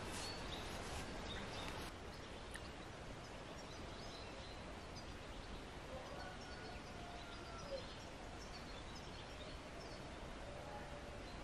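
Steady outdoor background noise with faint, scattered bird calls.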